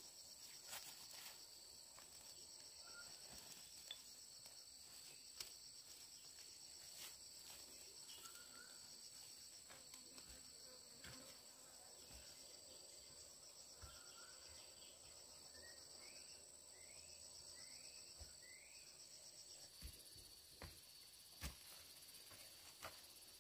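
Faint, steady, high-pitched insect chorus, with a few short chirps and scattered soft clicks.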